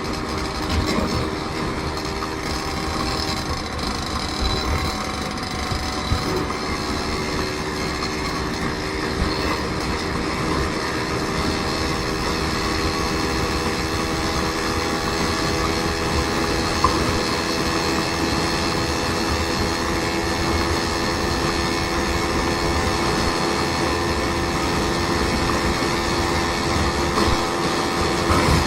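Steady vehicle travel noise: a constant engine drone with several held tones over a rumbling road noise, running evenly without pauses.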